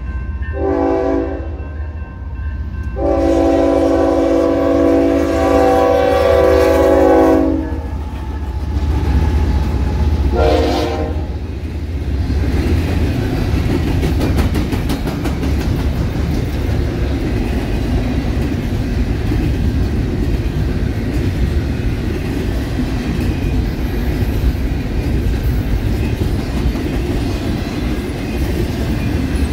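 Locomotive air horn sounding for a grade crossing: three blasts of a multi-note chord, the second one long, the last one short about ten seconds in. Then the double-stack intermodal freight train's well cars roll past with a steady rumble and clickety-clack of wheels over the rail joints.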